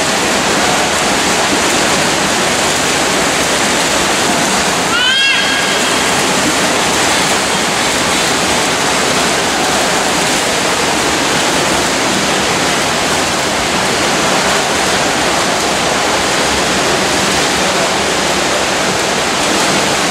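Steady wash of splashing from swimmers racing freestyle, mixed with spectators' voices. About five seconds in, one short rising high-pitched call cuts through.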